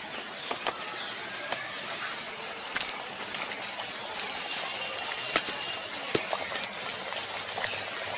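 Sweet potato pithas deep-frying in hot oil in a clay kadai: a steady sizzle with occasional sharp crackles.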